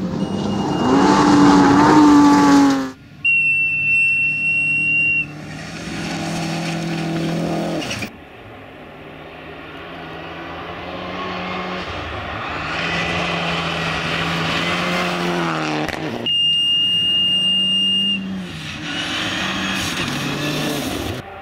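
Rally cars, among them a Mitsubishi Lancer Evolution, driven flat out on a gravel stage: engines revving up and dropping back through gear changes, with gravel spraying from the tyres. The sound comes in several short passes cut one after another, and two of them carry a high steady whine.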